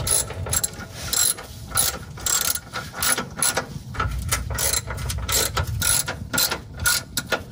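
Hand ratchet wrench clicking in repeated short strokes, snugging down a suspension stabilizer-link nut.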